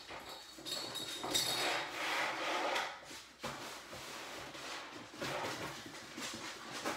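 Scraping and rubbing on a hard wood-look floor, coming and going in bursts, with a brief quieter spell about three seconds in.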